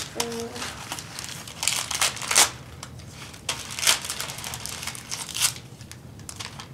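Wrapping paper being torn and crumpled by hand, with rustling throughout and several sharp rips, the loudest about two and a half, four and five and a half seconds in.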